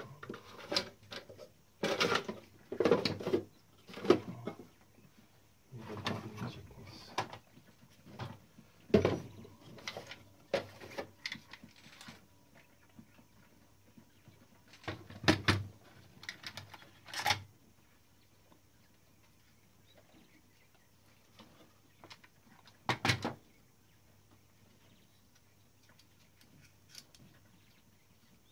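Irregular clicks and knocks of small metal parts and hand tools being handled while a Klein Adler 2 typewriter is repaired, coming in scattered clusters through the first half, then one short cluster later on.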